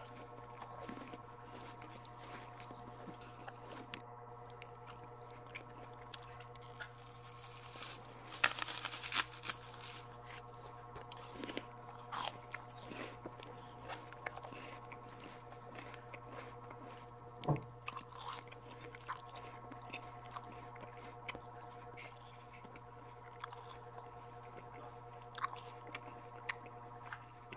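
Close-miked eating sounds: bites, crunching and chewing of santol fruit, with a denser, louder run of crunching about eight to ten seconds in. A steady low hum runs underneath.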